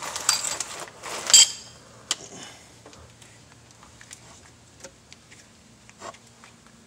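Metal tool clinking and scraping against the belt tensioner and engine-bay metal while the serpentine belt is fitted. The clatter is loudest in the first second and a half, then thins to a few scattered light ticks.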